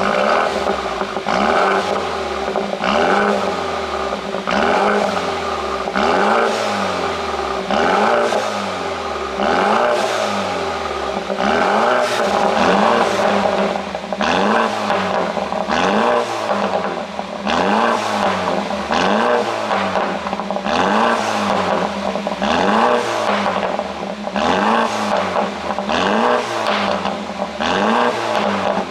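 The 2018 BMW F30 330i's turbocharged 2.0-litre four-cylinder being revved and let drop over and over, about once a second. Each time the revs fall, the exhaust pops and crackles on the overrun, produced by the pop-and-crackle ECU tune.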